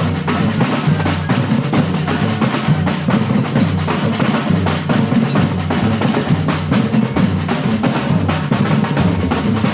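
Batucada drum ensemble playing a steady, driving rhythm: deep bass drums under dense snare and other percussion strokes, with no break.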